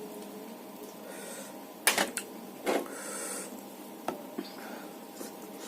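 A person eating rice and fish curry: a few sharp wet clicks of chewing and mouth smacking, with a short breath in between.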